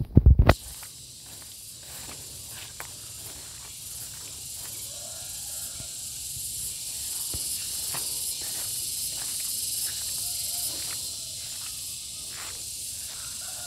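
Garengpung cicada calling: a steady high hissing buzz that slowly grows louder. A loud thump sounds right at the start, and light footsteps crackle through undergrowth.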